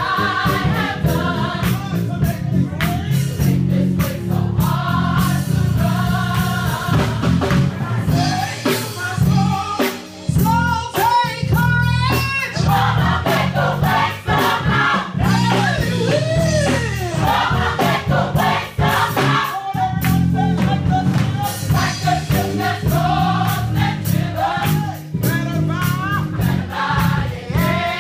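Gospel choir singing an upbeat praise song over live drums and band, starting suddenly.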